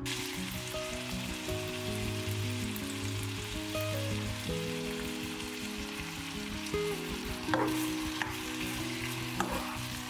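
Ground beef sizzling as it fries in oil in a nonstick frying pan, with a metal spoon stirring it and a couple of sharper knocks of the spoon against the pan in the second half. Soft background music plays underneath.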